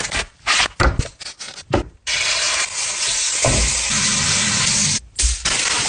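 Plastic wrap crackling as a packaged raw steak is opened. About two seconds in, a steady sizzle starts: a steak searing in a hot frying pan with butter. The sizzle briefly drops out near the end.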